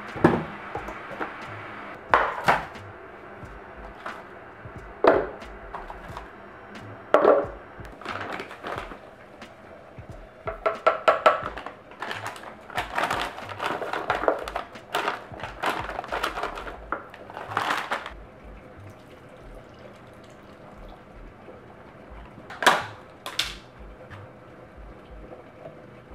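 Kitchen handling sounds of a blender being set up on a stone countertop: the base and plastic jar put down with knocks and thunks, then banana and cherries dropped into the jar and containers handled. Single sharp knocks come first, then a busy stretch of clatter in the middle, and two more knocks near the end; the blender is not running.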